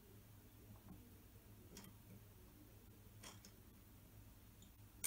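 Near silence with a low hum and three faint, short clicks about a second and a half apart: a steel digital caliper being adjusted and handled against an aluminium extrusion.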